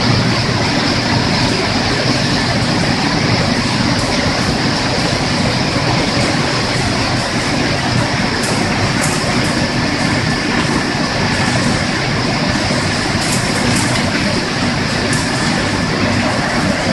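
Chicken feet processing machine running: a steady, loud mechanical din of motors and a wire-mesh belt conveyor, with the hiss of water from spray bars over the feet.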